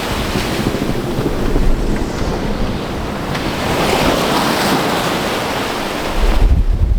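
Wind buffeting the microphone over the rush of waves along a sailboat's hull under way, with a louder wash of water about four seconds in and a heavy low wind rumble near the end.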